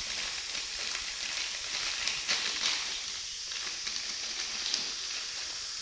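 Plastic instant-noodle packet crinkling and rustling in the hands, with a few sharper crackles over a steady background hiss.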